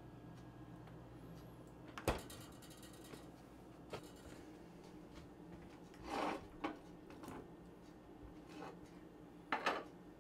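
A refrigerator door shutting with a sharp clack about two seconds in, then several short clatters of dishes and food being handled: cut fruit tipped from a glass bowl into a ceramic bowl.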